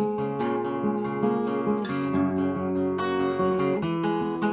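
Acoustic guitar strummed, its chords ringing on without singing.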